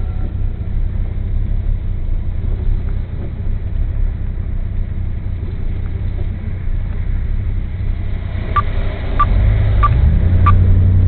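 Steady low vehicle rumble heard from inside a car in rain, swelling louder near the end as a tractor-trailer passes close in front. Four sharp, evenly spaced ticks, about two-thirds of a second apart, sound over the swell.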